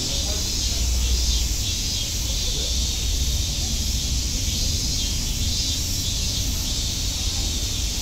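Cicadas singing in the trees in chorus: a dense, steady, high buzzing drone that holds without a break.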